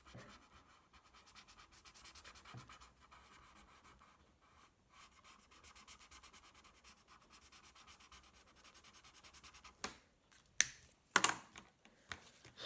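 Felt-tip marker scribbling on tissue paper, a fast run of scratchy back-and-forth strokes as a shape is coloured in. Near the end the scribbling stops and a few sharp knocks follow.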